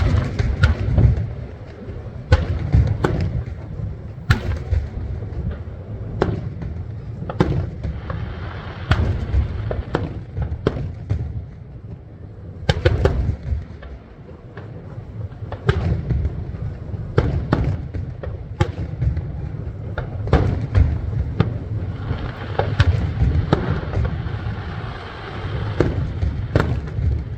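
Aerial fireworks bursting: an irregular string of sharp bangs over a continuous low rumble of booms.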